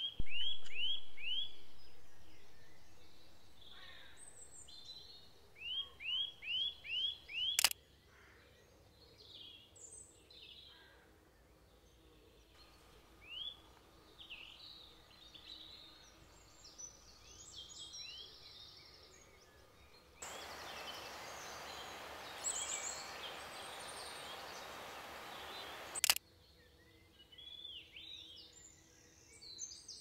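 Woodland birdsong: a small songbird sings quick runs of five or six short, high notes that slide downward, once at the start and again about six seconds in, with other birds calling faintly. A sharp click comes about eight seconds in, and later there is a stretch of steady hiss lasting several seconds.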